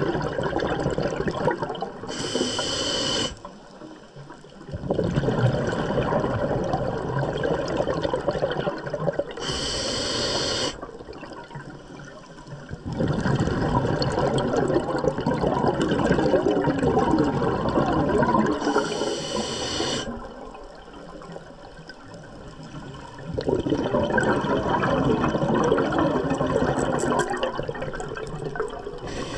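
Scuba diver breathing through a regulator: a short hiss of inhaled air comes four times, about every eight to nine seconds, and each is followed by a rush of exhaled bubbles lasting several seconds.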